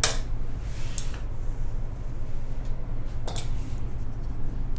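Steady low hum in the kitchen, with a short sharp click at the start as the metal pastry wheel is set down on the granite counter, then faint soft rustles of hands handling sheets of croissant dough.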